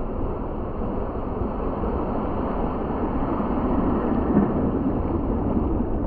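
Waves breaking and washing around a small boat in the surf, with wind buffeting the microphone; a steady, muffled rushing with no high end.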